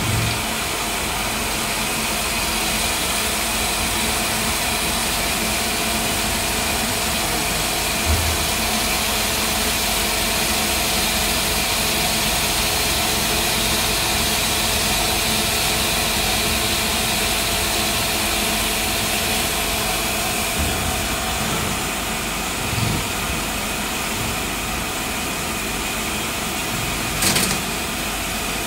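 CNC turret lathe running an automatic G72 facing-and-chamfer cycle: the spindle turns the bar while a turret-mounted insert cuts across its face, giving a steady machine running noise. A short click comes near the end.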